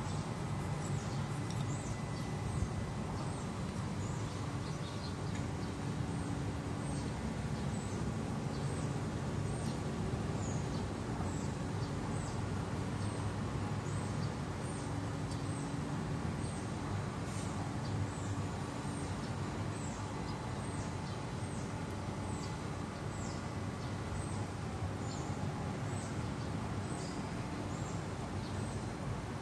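A small bird's high, thin chirps, each a quick downward sweep, repeating about once a second over a steady low background rumble.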